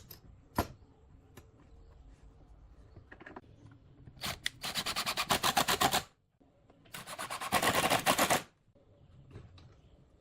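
A power tool running in two bursts of rapid rattling strokes, each about one and a half seconds long, with a few scattered clicks and knocks around them.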